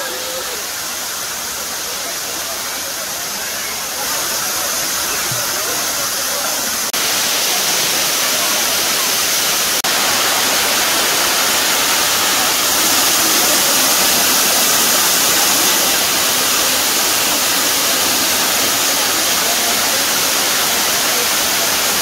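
Waterfall cascading over stepped rock ledges, a steady loud rush and splash of falling water. It jumps louder in steps about four, seven and ten seconds in.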